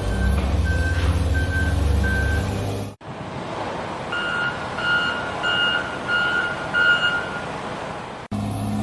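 Reversing alarm beeping steadily, about one beep every half second or so, over a low truck engine rumble. The sound cuts off abruptly about three seconds in. In its place comes a hissier stretch with five louder, two-tone reversing beeps, and near the end the engine-and-beep sound cuts back in.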